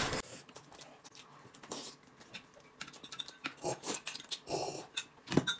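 Eating and drinking mouth sounds: wet chewing, lip smacks and sips, with light clicks of chopsticks.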